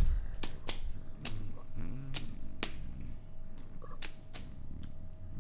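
Horror-film sound design: about eight sharp, uneven cracks and snaps over a low rumble and a faint steady hum.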